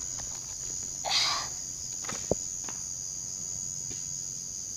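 Night insects such as crickets keep up a steady high-pitched drone. A brief noisy rustle comes about a second in, and a single sharp click a little over two seconds in.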